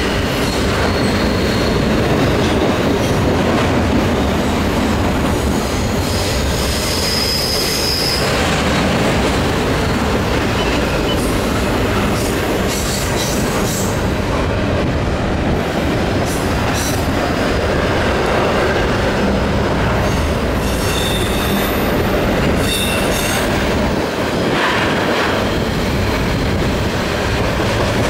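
Double-stack container cars of a CN intermodal freight train rolling past on a curve: a steady rumble of steel wheels on rail, with brief high-pitched wheel squeals coming and going and scattered clicks over the rail joints.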